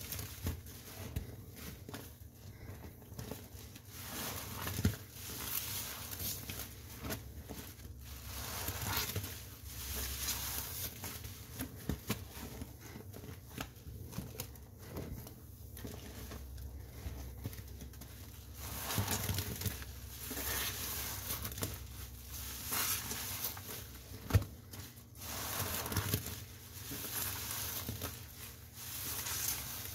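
A soapy sponge being squeezed and worked again and again, its wet foam crackling and squishing in irregular bursts.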